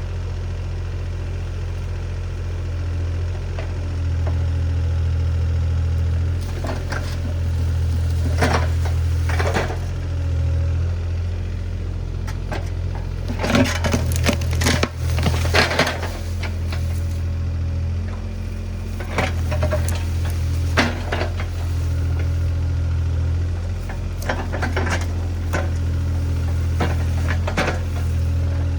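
Diesel engine of compact earthmoving equipment running steadily, with its load and pitch shifting from time to time. Scattered knocks and clanks of the machine working, the loudest cluster about halfway through.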